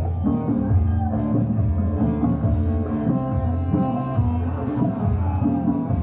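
Music with guitar and drums, playing steadily with a regular beat.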